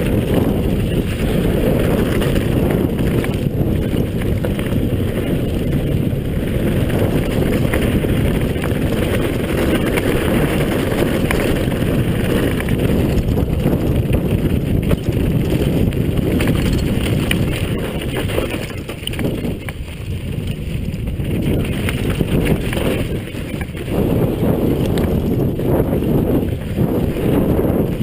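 Downhill mountain bike running fast over loose dirt and gravel: wind buffeting the camera microphone over the rumble and rattle of tyres and bike on the rough surface. The sound eases briefly about two-thirds of the way through, then picks up again.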